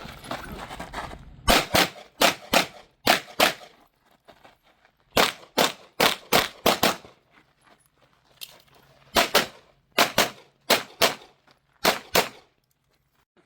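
Pistol fire on a USPSA practical-shooting stage. It starts about a second and a half in and comes in three strings of quick shots, about five, then five more, then around eight, with short pauses between them.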